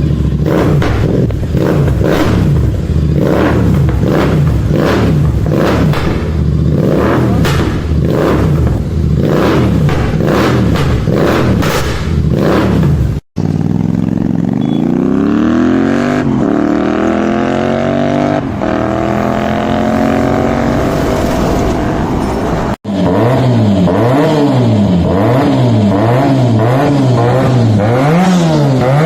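Sportbike exhausts revving, in three cut-together clips. First the throttle is blipped over and over, the engine pitch jumping up and down quickly. About 13 s in, a bike accelerates hard, its pitch rising and dropping back at two gear changes, then another engine is revved rapidly from about 23 s in.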